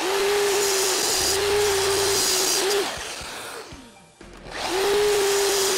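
Festool Kapex sliding miter saw run twice: the motor whines up to speed and the blade cuts through a strip of 3/4-inch plywood. Its pitch then falls as it winds down to a stop about three seconds in, and about a second later it starts again for the next cut.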